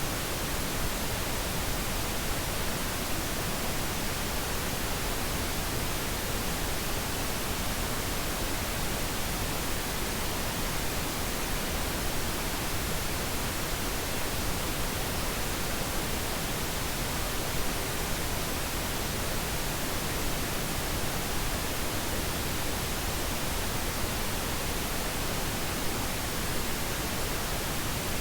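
Pink noise: a steady, even hiss that never changes, generated as a sleep aid.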